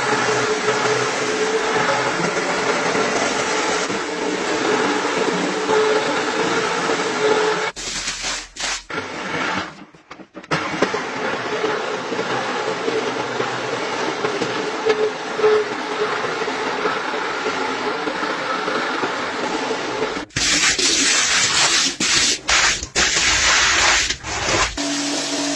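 Rotary floor scrubber running, its spinning brush scrubbing a shaggy rug through soapy foam: a steady motor hum with a swishing wash, broken by a few abrupt cuts. About twenty seconds in, a louder hissing rush takes over for a few seconds.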